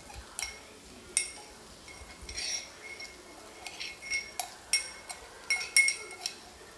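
Light kitchen clinks and taps, about a dozen spaced irregularly, each with a brief ring, as green chili–garlic paste goes into a pan of boiled chana dal.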